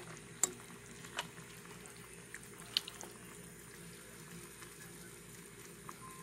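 Tuna and cheesy pesto pasta sauce cooking in a frying pan: a faint steady sizzle broken by a few sharp pops or ticks.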